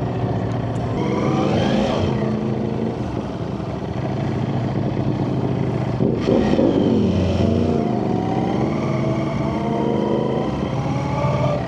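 Ducati Panigale V4 sportbike engine pulling under acceleration, its pitch rising through a gear with a shift about two seconds in. Near the middle the pitch dips and swings back up, then climbs steadily again to the end.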